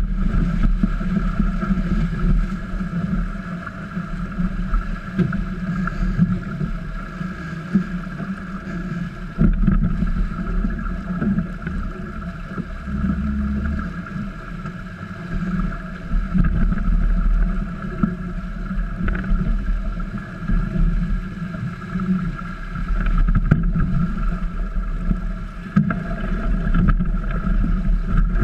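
Wind buffeting the microphone and water rushing along the hulls of a small trimaran under sail, rising and falling with the gusts, with a faint steady hum underneath.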